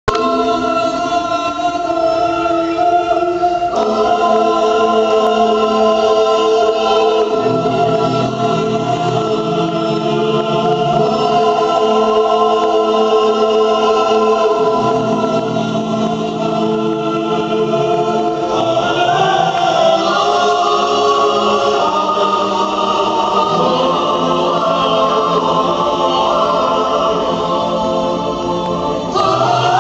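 Runway show music: slow, held chords that shift every few seconds, with no beat.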